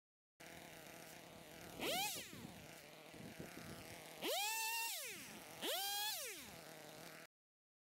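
Chainsaw engine idling, then revved up three times as it cuts into brush: a short rev about two seconds in and two longer ones later, each rising in pitch, holding and falling back to idle.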